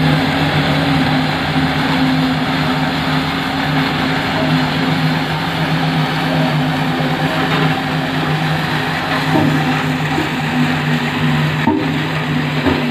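Old road roller's diesel engine running steadily as the machine rolls over loose stone aggregate, with a constant crunching noise from the stones under its steel rolls.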